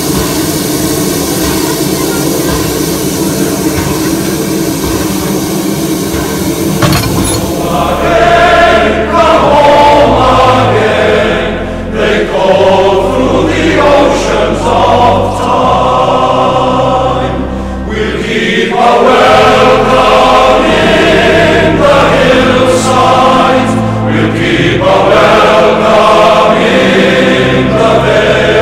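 For about the first seven seconds, a steady rushing noise from the standing Baldwin steam locomotive. Then background music with choral singing over a deep bass line takes over to the end.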